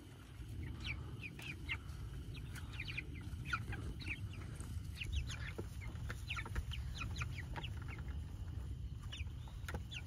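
A flock of young Cornish cross broiler chickens peeping and cheeping: many short, high chirps overlapping all through, over a steady low rumble.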